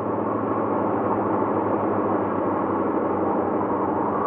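Ambient background music: a steady, sustained wash of tones without a beat.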